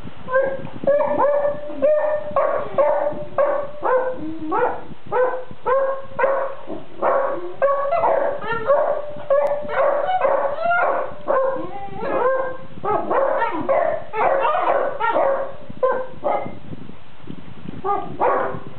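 Basset hounds vocalizing in their sleep, trading a long run of short whimpering yips and muffled woofs back and forth, several calls a second, as if grumbling at each other.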